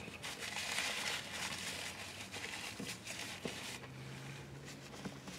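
Paper napkin rustling and crinkling as fingers are wiped, with a few small clicks. A faint steady low hum comes in near the end.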